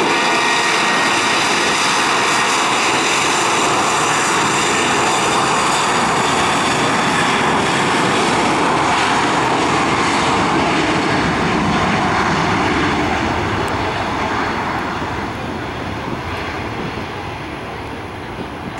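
Airbus A320 jet engines running at high power as the airliner rolls along the runway, a loud steady roar with a whine on top. The roar eases off over the last few seconds as the plane moves away.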